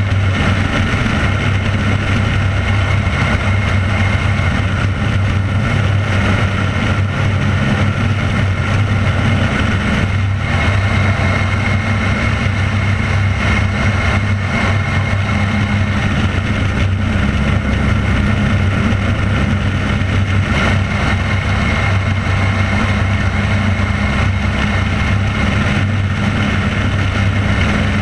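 Firefighting airplane's engine droning steadily in flight, with air rushing past a microphone mounted under the wing.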